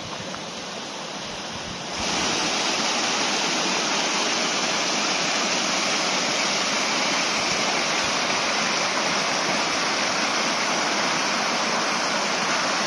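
Small mountain waterfall cascading over rocks: a steady rushing of water that steps up louder about two seconds in.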